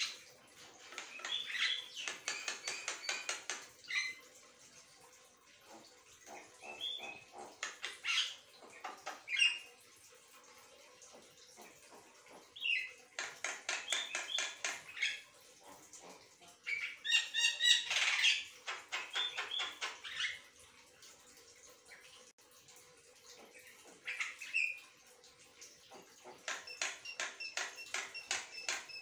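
Javan myna (jalak kebo) singing in bouts of fast repeated chattering notes mixed with whistled tones. Each bout lasts a few seconds, with short pauses between.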